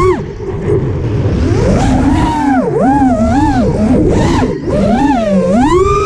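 FPV quadcopter's brushless motors and propellers whining, heard from the onboard camera, the pitch swooping up and down several times as the throttle is worked, over a rush of wind.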